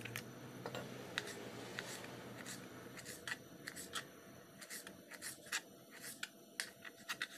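Kitchen knife slicing a deseeded tomato into strips on a plastic cutting board: faint, irregular clicks and taps as the blade goes through the flesh and meets the board, coming closer together from about three seconds in.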